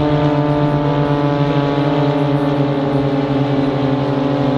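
Pitts Special aerobatic biplanes' piston engines and propellers giving a steady, even drone.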